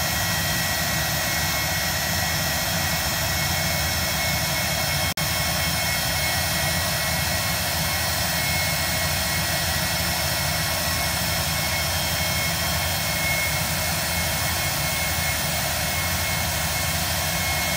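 Pilatus PC-24's Williams FJ44 turbofan running steadily: an even roar with a high, steady whine. The sound drops out for an instant about five seconds in.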